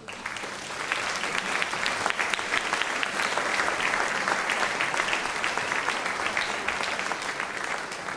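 Audience applauding after a choral piece ends: dense clapping that starts suddenly, swells over the first second, then holds steady.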